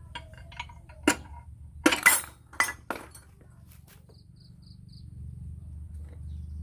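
A run of sharp metal clinks and knocks, tools and engine parts being handled, over a low steady hum, with four quick high chirps just after the knocks.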